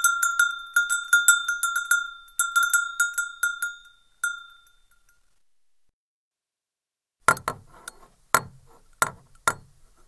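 Cowbell shaken, clanking about a dozen times in quick succession with a clear ringing tone, which fades out about five seconds in. After a short silence, a second run of five or six duller, shorter clanks follows with little ring.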